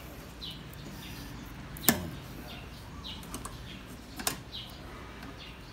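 Sharp plastic clicks from a windshield wiper blade's release clip as it is worked off the wiper arm, two loud ones about two seconds apart and a few softer ones; the clip is new and tight. Birds chirp in the background.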